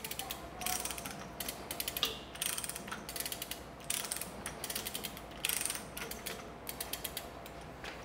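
Compact ratcheting lever chain hoist being cranked to lift a drill press table: each stroke of the lever gives a quick run of ratchet clicks, about one stroke a second, with light chain rattle.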